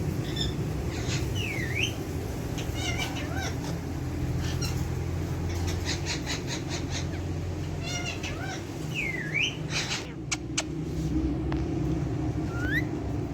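Pet parrots, an Alexandrine and a ringneck, making short whistled calls and quick chattering chirps, with a few sharp clicks about ten seconds in, over a low steady hum.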